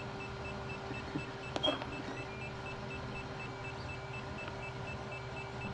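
DJI O3 FPV system in linking mode, giving a fast, faint, even beeping of about four beeps a second over a steady electrical hum. A small click comes about one and a half seconds in.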